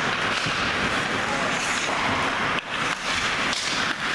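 Indistinct voices and shouting from spectators and players, echoing in an indoor ice rink, with a few sharp knocks in the second half.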